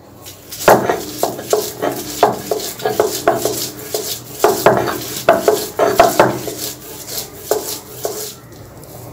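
Stone pestle grinding on a textured stone slab (sil-pata), crushing fish and herbs into a paste: repeated knocking and scraping strokes of stone on stone, about two a second, starting about half a second in.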